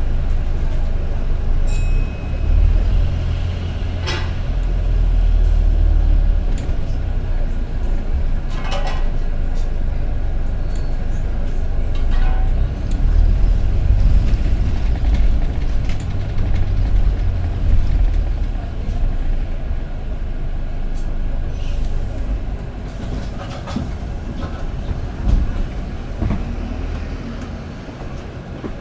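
Inside a moving bus: a steady low rumble of engine and road noise that swells and eases as it drives, with occasional short rattles and squeaks from the body.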